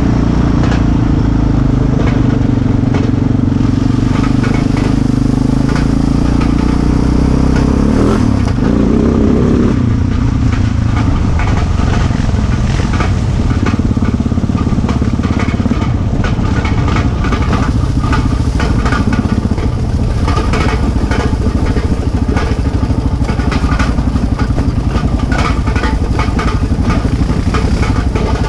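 Single-cylinder four-stroke ATV engine running under way on a rough trail, its revs rising and falling, with a short climb in pitch about eight seconds in. Rattles and knocks from the machine bouncing over the ground come more often in the second half.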